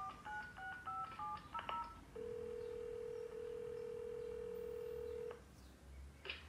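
Telephone keypad tones, a quick run of about six beeps as a number is dialled, followed by a steady tone lasting about three seconds. The sound effect plays through a laptop's speakers.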